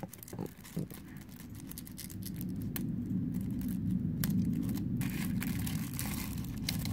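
Snap-off box cutter blade scratching and slicing through paper wrapping, with short scratchy clicks and light rustle. Underneath, a low steady rumble swells after a second or two and becomes the loudest sound.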